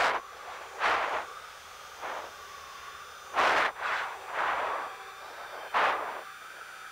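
Heavy breathing into a jet crew member's oxygen mask: about six sharp, hissing breaths roughly a second apart, the loudest about three and a half seconds in, over a faint steady cockpit hum.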